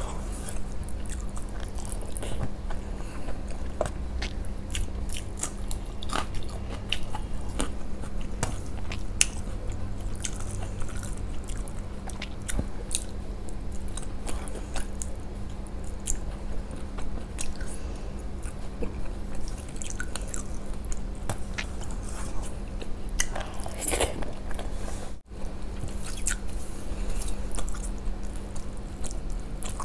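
Close-miked chewing and wet mouth clicks of a person eating rice and fish curry with her hands, over a steady low hum. The sound drops out briefly near the end.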